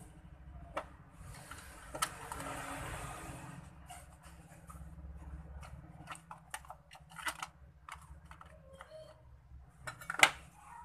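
Hard plastic parts of a Rexus F26 gaming headset clicking and knocking as they are handled and fitted together, with a stretch of rustling in the first few seconds and a sharp click near the end.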